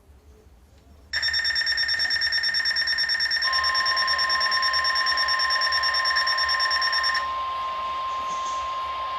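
Weather radio receiver sounding its alert: a loud, rapidly pulsing electronic alarm starts about a second in. About two seconds later the steady 1050 Hz NOAA Weather Radio warning alarm tone joins it, marking the start of a new warning broadcast. The pulsing alarm stops near the end while the steady tone carries on.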